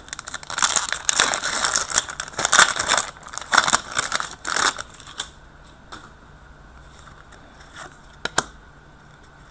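Foil hockey-card pack wrapper crinkling and tearing as it is opened, in rapid bursts for about five seconds, followed by a couple of light clicks from the cards being handled.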